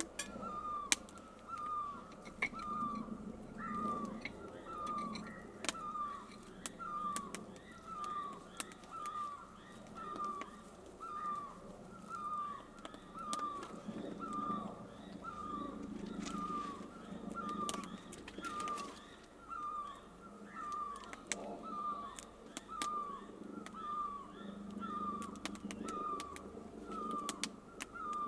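A bird repeating one short, slightly falling note at an even pace, about one and a half calls a second, with scattered sharp ticks.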